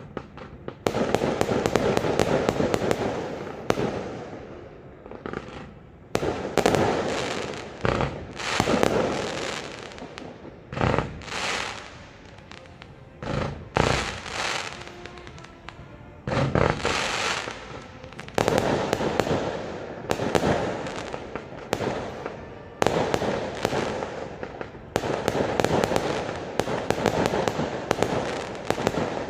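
Fireworks display: rapid volleys of bangs and crackling bursts starting about a second in, coming in waves with short lulls between them.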